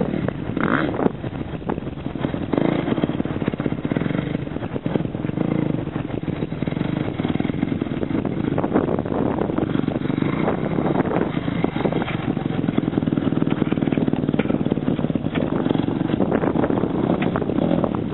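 Yamaha YZF250 four-stroke motocross bike engine running as it is ridden around the dirt, with a small dip in level about five seconds in.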